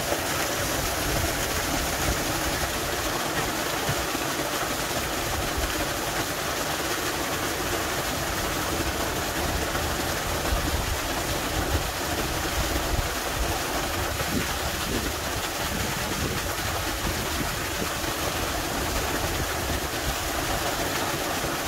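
Small waterfall spilling down a rock face a few metres away: a steady, unbroken rush of falling water.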